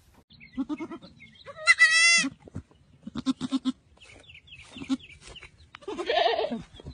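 Baby goat bleating: one loud, high call about two seconds in, then shorter, lower, wavering bleats.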